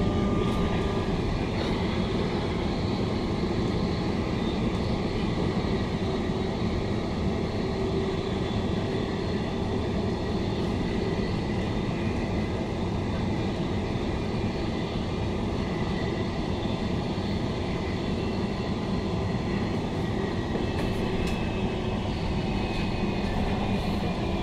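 Queensland Rail New Generation Rollingstock electric multiple unit heard from inside a passenger car while running at speed: a steady rumble of wheels on rails and running noise, with a few faint steady tones above it.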